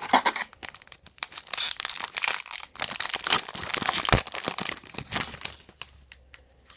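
Foil wrapper of a 2002 Fleer Triple Crown baseball card pack crinkling and tearing as it is ripped open. The crackle dies down about five and a half seconds in, as the cards come out of the pack.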